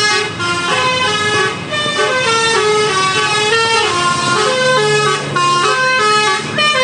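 Tour bus's multi-tone Basuri telolet horn playing a fast melody, its notes stepping up and down every fraction of a second.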